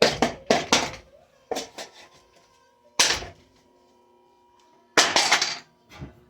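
A Hampton Bay Quick Connect ceiling fan being smashed, in irregular bursts of sharp knocks and cracking blows. There is a quick cluster of hits in the first second, single blows about two and three seconds in, and a longer crashing burst about five seconds in.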